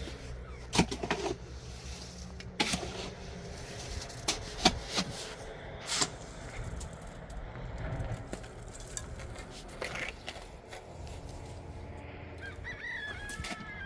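A series of sharp knocks and clatters, most of them in the first six seconds, over a low steady hum, with a short warbling call near the end.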